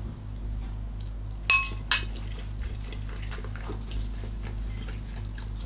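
A metal fork clinks against a white ceramic bowl with a short ringing tone about a second and a half in, then taps it once more. Faint chewing follows.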